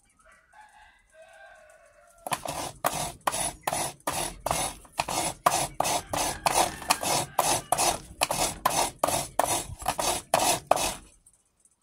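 Half a coconut scraped hard against the serrated metal blade of a coconut grater, a steady run of rasping strokes, about two or three a second, starting about two seconds in and stopping just before the end.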